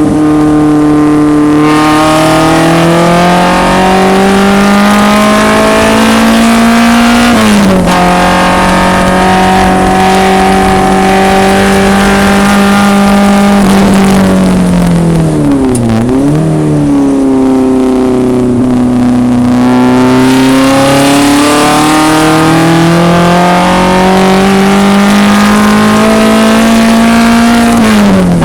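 1974 BMW 2002 race car's four-cylinder engine running loud at full throttle, the revs climbing steadily through each gear. The pitch drops sharply at an upshift about seven and a half seconds in and again near the end, and dips briefly around the middle before climbing again.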